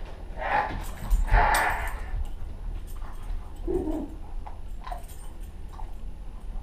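A dog making a few short sounds: two louder ones in the first two seconds and a lower one about four seconds in.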